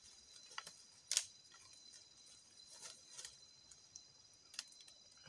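Steady high-pitched chorus of night insects in wet forest, with a few scattered sharp clicks, the sharpest about a second in.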